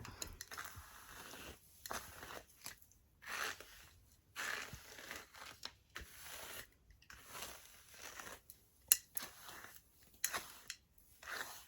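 A brush being drawn through straight wig hair, with repeated swishing strokes about one a second and a sharper click near the end.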